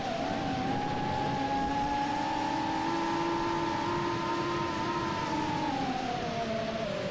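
Brushless motors of a 3-inch FPV quadcopter whining over wind rush, flying itself home in GPS rescue mode. The pitch rises slowly over the first few seconds and falls again near the end as the flight controller changes throttle.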